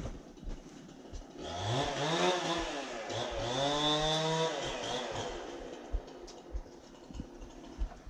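An engine revving up, its pitch rising for about a second, dropping briefly about three seconds in, then climbing again and holding before it fades out about five seconds in.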